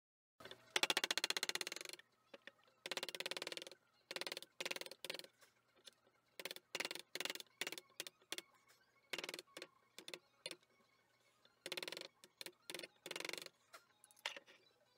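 Wood chisel cutting into a log slice: irregular short scraping strokes, some with a fine chattering rattle, and a few sharp taps from a wooden mallet driving the chisel. The sound begins abruptly about half a second in.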